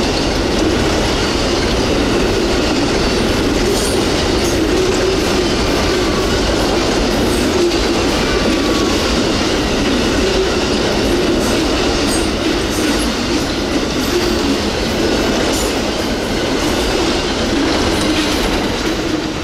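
Amtrak Auto Train's enclosed autorack cars rolling past at about 42 mph: a steady rumble of steel wheels on the rails with a clickety-clack of wheels over the rail joints.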